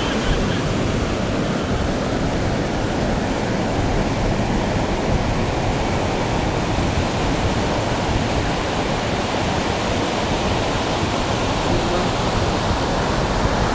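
Sea surf breaking steadily on a sandy beach: a continuous, even rush of waves with no single crash standing out.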